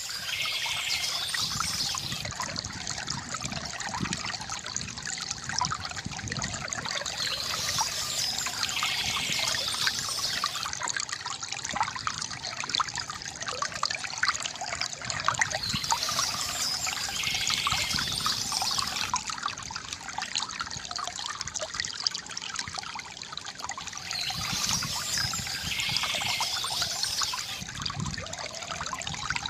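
A small stream trickling and babbling steadily, with short bursts of birdsong that recur about every eight seconds.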